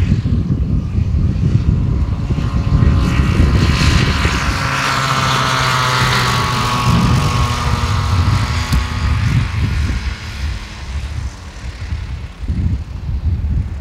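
Rotax 447 two-stroke engine and propeller of a MiniMax 1600R ultralight in flight, the engine's buzzing tone clearest in the middle and fading over the last few seconds. Wind buffets the microphone underneath.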